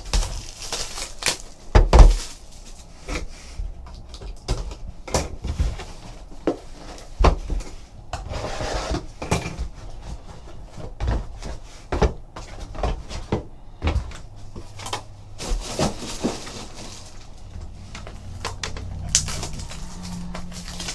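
A sealed box of trading cards being opened and handled: scattered knocks and clicks of cardboard and packs set down, with a loud knock about two seconds in and a stretch of rustling and tearing near the middle.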